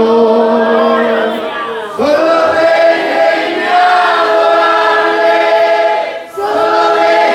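A man and a young woman singing a Spanish worship song as a duet into microphones, holding long notes. The singing breaks off briefly about two seconds in and again near six seconds.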